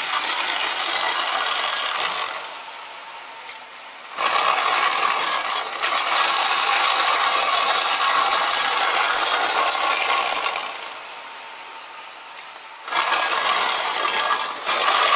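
Ford BA XR8's V8 running at a standstill, heard from underneath close to its BTR four-speed automatic transmission, with the transmission's grumbling noise in it. The owner suspects a failed planetary gear set. The sound drops to a quieter level twice, for about two seconds each time.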